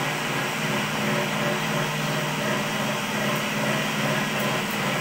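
Gas-heated cotton candy machine running: a steady motor hum under a broad hiss.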